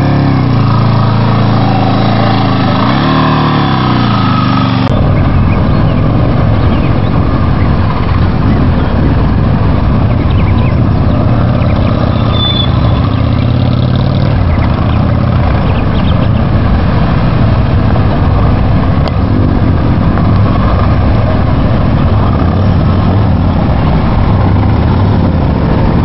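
Motorcycle engines at low speed: for the first few seconds a dual-sport bike's engine rises and falls in pitch as the throttle is worked, then, after an abrupt change about five seconds in, a steady, rough low engine sound from cruiser motorcycles riding slowly nearby.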